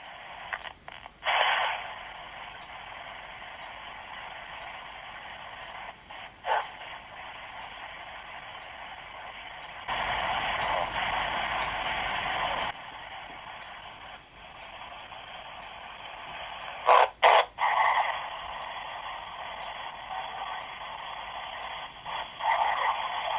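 Ghost-box static from an S Box white-noise app playing through a flip phone's small speaker: a steady, thin hiss broken by brief louder snatches of sound a few times, and a louder stretch of wider hiss about ten seconds in.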